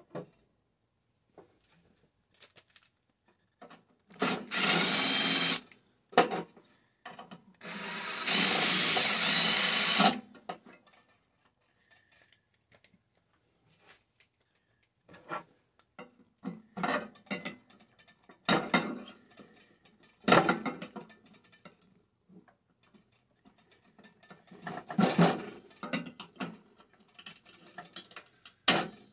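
A handheld power tool runs in two bursts, one about a second and a half long and one about two and a half seconds long, near the start. Scattered clicks and knocks of the microwave's metal parts being handled during dismantling follow.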